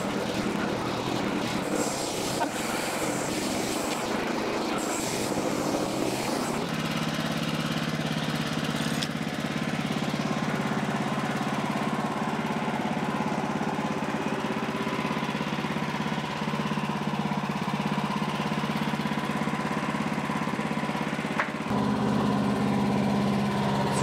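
Wood-Mizer LX55 band sawmill running: for about the first six seconds the band blade cuts through the end of a small log with a harsh, noisy sound. After that the gas engine runs on steadily with the blade spinning free, its note shifting a couple of seconds before the end.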